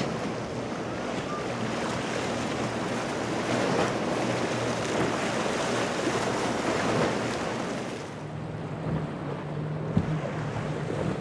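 Outboard motors running as a center-console boat crosses choppy water, with a steady wash of spray and wind. From about eight seconds in, a different boat's triple Mercury 300 outboards take over with a steadier low engine tone.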